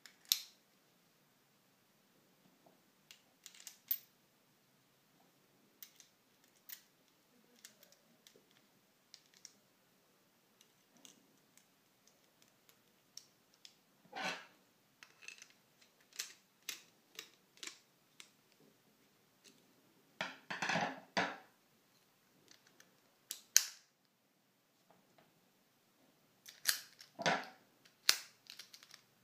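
Small metallic clicks and taps of an American Lock 1106 padlock being reassembled by hand: its brass core and steel shackle going into the aluminium body. There are a few louder rattling scrapes, the longest about two-thirds of the way through.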